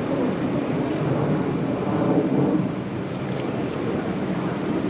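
Wind rumbling on the microphone, a steady low noise that swells briefly around two seconds in.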